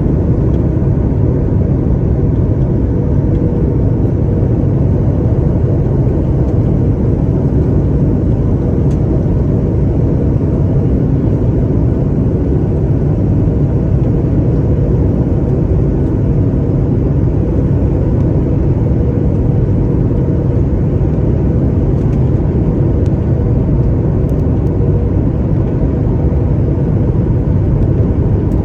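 Airliner landing: a steady low rumble of engines and airflow, with a faint steady hum above it, unchanging throughout.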